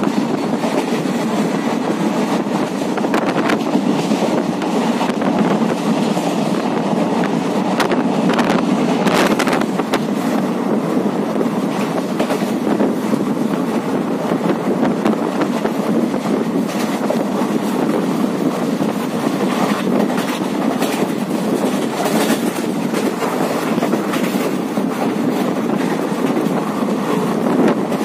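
Passenger train running at speed, heard from an open carriage window: a steady rumble of wheels on the rails with occasional sharp clacks over rail joints.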